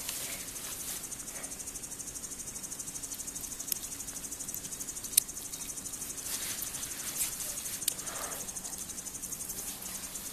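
An insect chirring steadily in a fast, high-pitched trill, with a few brief sharp clicks over it.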